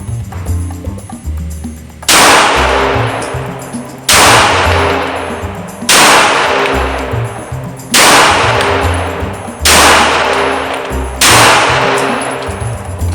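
Six shots from a Springfield Armory Hellcat Pro 9mm pistol, fired deliberately about two seconds apart, each with a long ringing tail, over background music.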